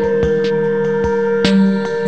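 Background music: long held tones over a steady beat.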